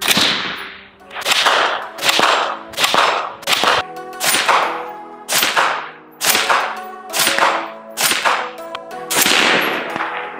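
FN SCAR 16 5.56 rifle with a suppressor firing a string of single shots, about a dozen sharp cracks spaced half a second to a second apart, over background music.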